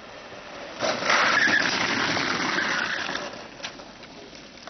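Homemade kart going past close by: a rush of rolling noise on the asphalt rises sharply about a second in, holds for about two seconds, then fades as the kart moves away.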